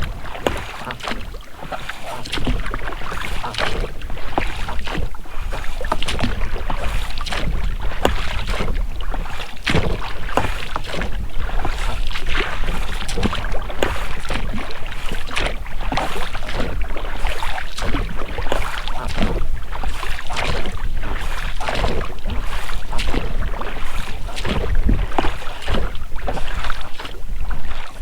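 Oars dipping and splashing as an inflatable boat is rowed, with its rubber rowlocks creaking and rubbing on each stroke.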